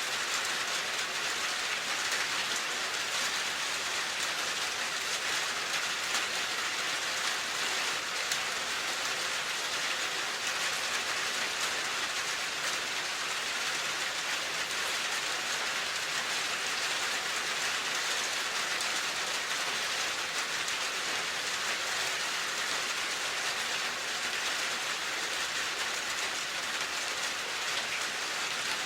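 Steady rain falling on a surface, an even hiss with no let-up.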